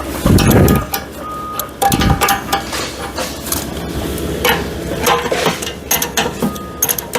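Metal clinks and knocks of a hydraulic log splitter's screw levelling feet being adjusted to raise its rear, with two dull thumps, one just after the start and one about two seconds in.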